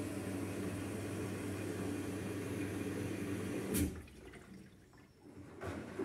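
Front-loading washing machine filling at the start of an express cycle: water rushing into the drum, which stops with a click about four seconds in. Fainter water sounds return near the end.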